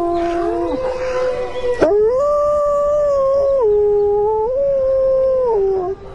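Wolves howling: long held notes that step up and down in pitch, two voices overlapping at first, then one howl that breaks off near the end.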